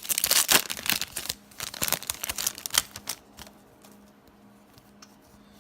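Trading-card pack wrapper crinkling and tearing as it is opened, in a dense crackle for about three seconds, then only faint ticks of cards being handled.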